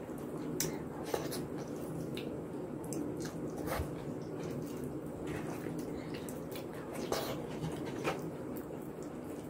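Soft, wet squishing of a hand mashing and mixing khichuri on a clay plate, with closed-mouth chewing and a few short clicks, over a steady low hum.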